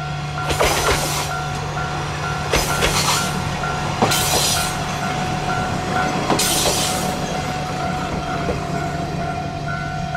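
KiHa 52 diesel railcar pulling away with its engine running steadily, while a railway crossing bell rings about twice a second. Several short bursts of hiss come and go over it.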